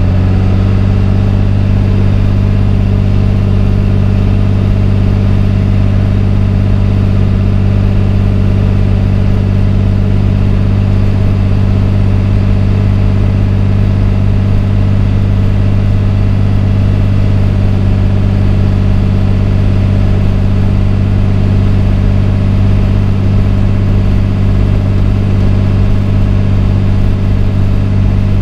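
Cabin sound of a motorhome's 5.9 Cummins inline-six diesel running at a steady cruise: a loud, even low hum that holds the same pitch throughout, with road noise over it.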